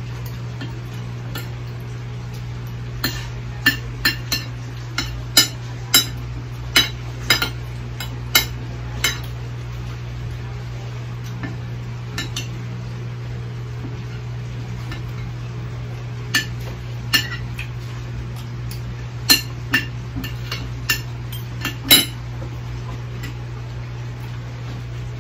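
Spoon clinking and scraping on a glass plate while eating, a scatter of irregular sharp clicks, thickest early on and again later, over a steady low hum.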